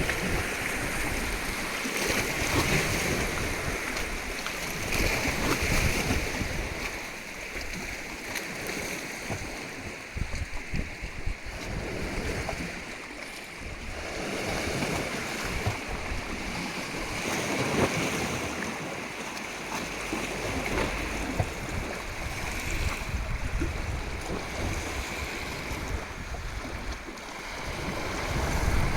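Ocean surf: waves breaking and washing on the shore, a steady rush that swells and eases every few seconds.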